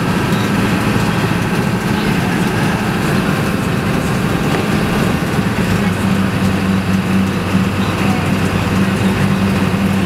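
Vehicle driving, heard from inside its cabin: a steady low engine hum under an even rushing road and wind noise, with no change throughout.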